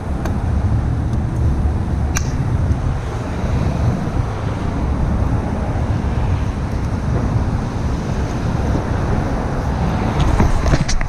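BMW F800ST motorcycle under way: steady heavy wind rush buffeting the seat-mounted recorder, with engine and road noise underneath and a few sharp clicks, one about two seconds in and a cluster near the end.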